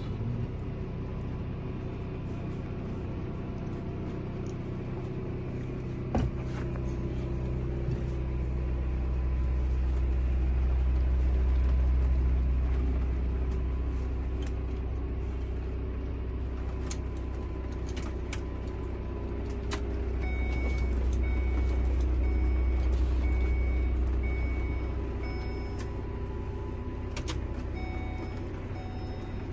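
Low engine and road rumble inside a Ford van-based motorhome, swelling twice, with scattered rattles and clicks from the cabin. In the last third a repeating electronic beep sounds at an even pace.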